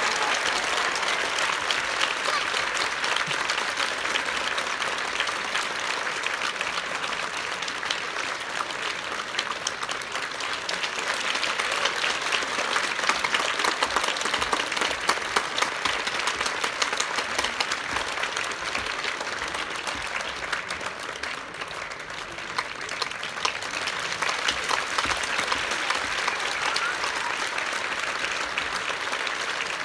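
Theatre audience applauding without a break, many hands clapping at once, a little louder around the middle.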